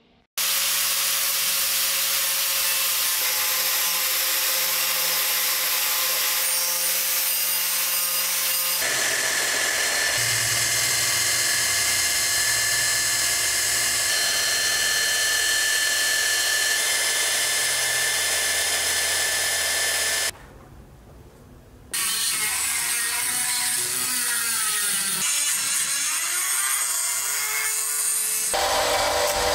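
Power tools grinding and sanding a steel axe head in several stretches: an angle grinder with a sanding disc on the blade, and near the end a small rotary tool grinding inside the eye. There is a brief quieter break about two-thirds of the way through, and after it the tool's pitch dips and rises again.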